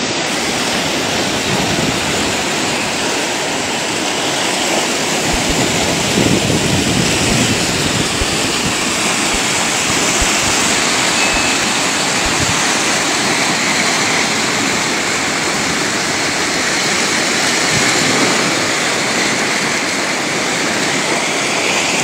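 Muddy floodwater rushing down a river in spate, a steady, loud rush of churning water.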